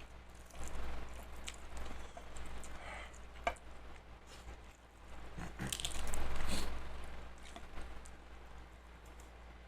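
Close-miked chewing and mouth sounds of a person eating, with wet squishing and sharp little clicks coming in irregular bouts, the loudest bout around six seconds in.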